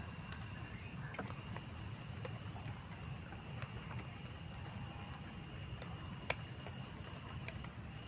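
Insects droning high-pitched in the vegetation, the sound swelling and fading about every two seconds, with a few faint light clicks below it.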